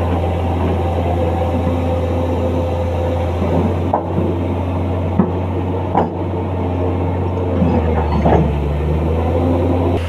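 Komatsu hydraulic excavator engine running steadily under load, with a hydraulic whine that shifts in pitch as the arm and bucket move, and a few sharp knocks from the bucket and machine.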